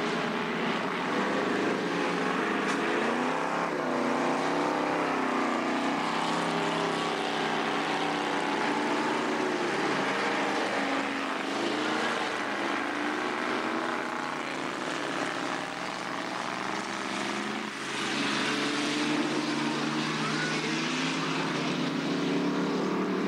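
Engines of several speedway sedan race cars running hard at racing speed, their overlapping pitches rising and falling as they accelerate and lift off through the turns.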